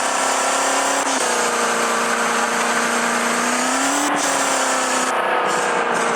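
Maruti Suzuki Eeco van's engine held at high revs under hard driving, running at a nearly steady pitch. The pitch dips about a second in, climbs slowly, then drops back after about four seconds.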